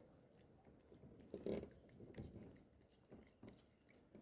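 Near silence, with a few faint scattered clicks and one brief soft noise about one and a half seconds in.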